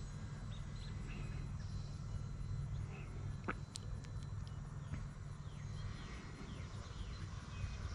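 Insects chirping steadily over a low rumble, with a few short chirps and one quick rising chirp near the middle.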